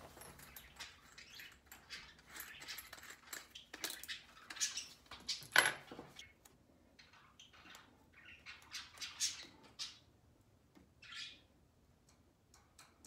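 Clicks and rattles of a cordless drill being handled while its chuck is twisted by hand to fit a bit: irregular small knocks and scrapes, the loudest about halfway through.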